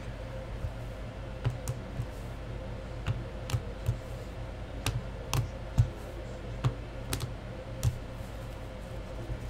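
Irregular light clicks and taps of rigid plastic card holders being handled and set down on a tabletop, about a dozen in all, over a steady background hum.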